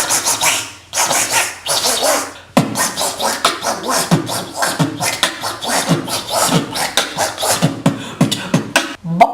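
Human beatboxing. Breathy, hissing bursts come first; about two and a half seconds in, a fast steady beat of mouth kick-drum thumps and sharp clicks begins.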